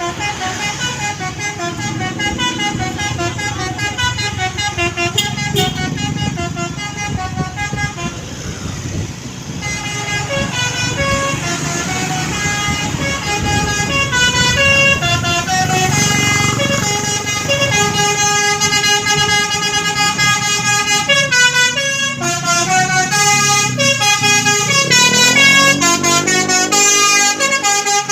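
Basuri 'telolet' multi-tone bus horn playing a fast tune of stepped, pitched notes, the tune changing about ten seconds in.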